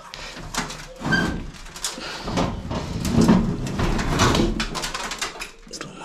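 Rubber drain hose of a washing machine rubbing and scraping as hands twist and push it back onto its fitting at the drain pump, with a short squeak about a second in.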